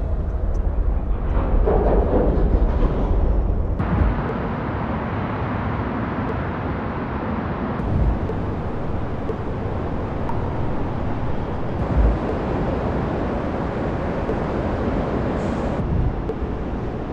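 Diffuse urban ambience of distant traffic: a steady rumble and hiss with no single vehicle standing out, and a short low thump about every four seconds.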